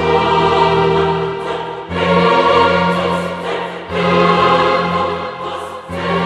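Background choral music: a choir singing held chords, in phrases that swell and restart about every two seconds.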